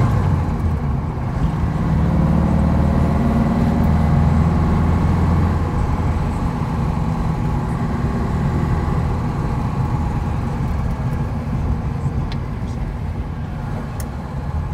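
Porsche 356 B's 1582 cc air-cooled flat-four heard from inside the cabin while driving. The engine note drops sharply right at the start, as at a gear change, then pulls steadily for several seconds and eases off toward the end.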